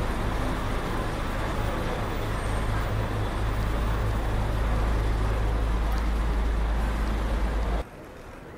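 Road traffic on a busy street: a steady, loud low engine rumble with general traffic noise, cutting off abruptly near the end.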